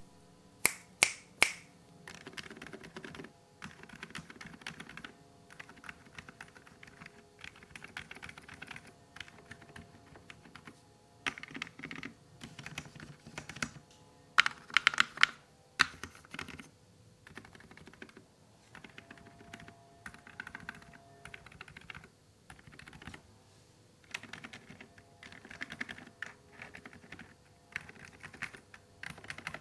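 Typing on a stock Gamakay TK75HE V2 keyboard with Gamakay Magnetic Phoenix Hall-effect magnetic switches: runs of fast keystrokes in bursts with short pauses. Three loud clacks about a second in and a louder cluster of strikes about halfway through.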